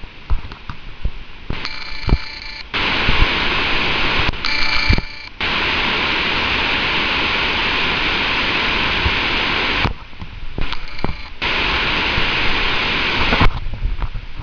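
Loud, steady hiss of falling water from Victoria Falls, which cuts in and drops back abruptly several times.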